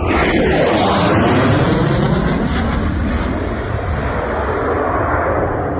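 Military jet making a low, high-speed pass: a sudden loud jet roar that sweeps down in pitch over the first second, then eases slowly as it moves away.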